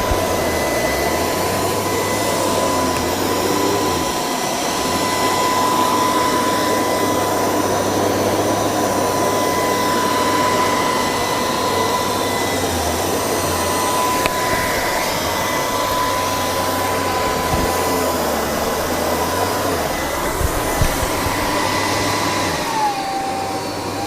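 LG R9 robot vacuum running, a steady suction noise with a high whine that drops and wavers in pitch near the end.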